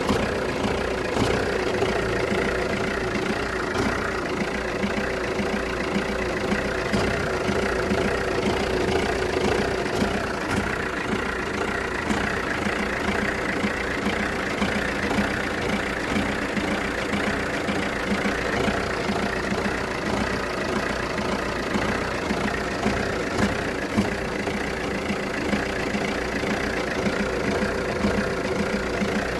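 Jeep Renegade's 1.6 Multijet four-cylinder turbodiesel idling unevenly with a misfire, its beat stumbling irregularly. The misfire comes after a few minutes at idle and clears once the engine is warm; the owner wonders whether an oxygen sensor, MAF sensor or injector is to blame.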